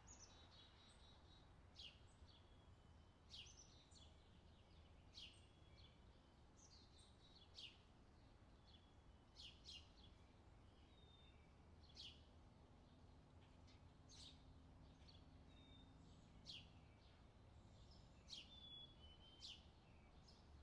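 Faint summer birdsong: many short, high chirps and quick falling whistles from several birds, scattered through at about one every second or so.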